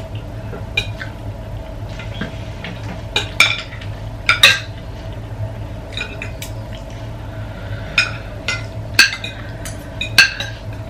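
Metal spoons and forks clinking and tapping against ceramic plates as people eat, in irregular sharp clinks, over a faint steady hum.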